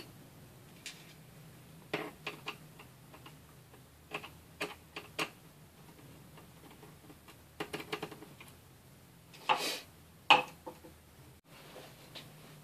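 Scattered small clicks and taps of a screwdriver backing out the cooling-fan screws of an Asus X51R laptop's plastic case, with screws handled. Two louder knocks come about nine and a half and ten seconds in.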